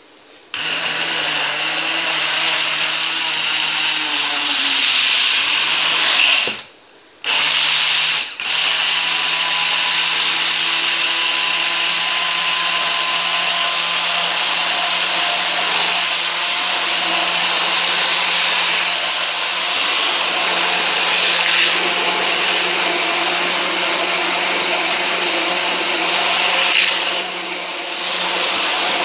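Braun hand-held stick blender running in a tall beaker, blending mango lassi mixture with a steady motor whine. It switches on just after the start and stops for about a second around six seconds in. It then restarts, with a momentary dip a second later, and runs steadily to near the end.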